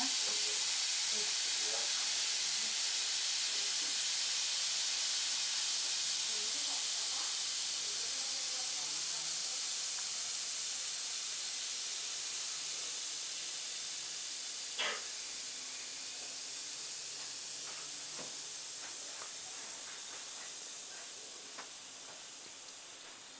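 Mini baking soda and citric acid bath bombs fizzing as they dissolve in a bowl of water. The steady high hiss slowly fades as they break down, with a single faint click about fifteen seconds in.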